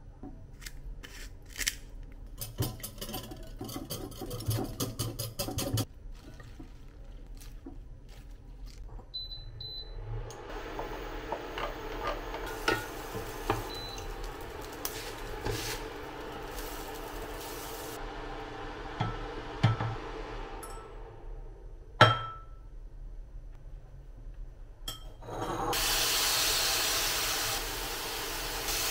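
A run of cooking sounds. First a wire whisk strikes a glass bowl in quick rhythmic strokes. Then comes a steady sizzle with light scrapes as food is stirred with a wooden spatula in an electric frying pan, one sharp clack, and near the end a loud, even sizzle of chicken pieces frying in oil.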